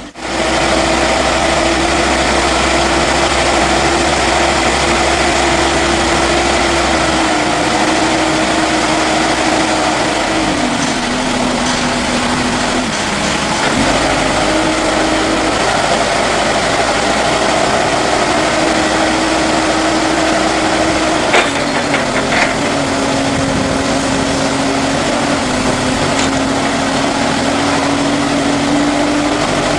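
Narrow-aisle forklift truck's engine running steadily, its pitch stepping up and down as the mast lifts. A few short knocks come about three-quarters of the way through.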